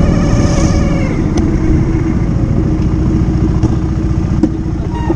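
Motorcycle engine running steadily while riding. A higher-pitched drone with several tones fades out about a second in.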